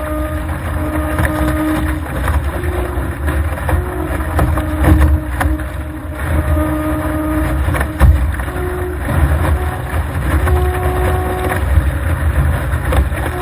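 Wind buffeting the microphone and water rushing and splashing past the bow of a Laser dinghy sailing fast through chop. A humming tone comes and goes every second or two, shifting in pitch.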